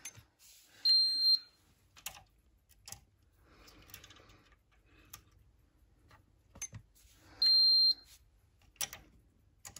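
Kewtech KT63 Plus multifunction tester beeping twice: a steady high half-second beep about a second in and another near the end, each as a test-button press returns a low continuity reading of about 0.8 ohms. Light clicks and knocks of the leads and tester being handled come in between.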